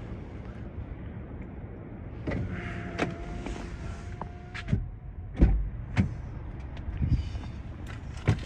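Inside a car, a passenger getting in: the door opens with clicks and rustling, then shuts with a heavy thump about five and a half seconds in, followed by a few more clicks, over a steady low engine hum.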